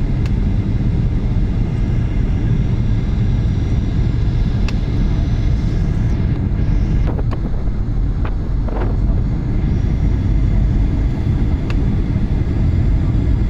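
Airliner cabin noise on the descent to landing: a steady rumble of engines and rushing air with a faint steady whine over it, and a few faint clicks.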